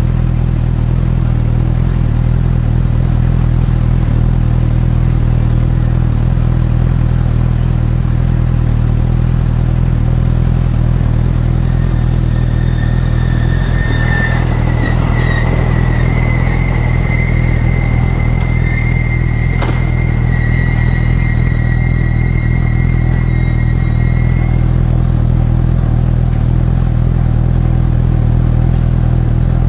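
Honda CB1000R inline-four engine running steadily without any clear change in revs. A high, thin whine comes in about twelve seconds in and holds until about twenty-five seconds, with a single sharp click about twenty seconds in.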